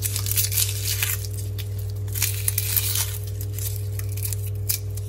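Dry, papery garlic skins crackling and rustling as a garlic bulb is broken into cloves and peeled by hand, with many short sharp crackles. Under it runs a steady low hum from a washing machine.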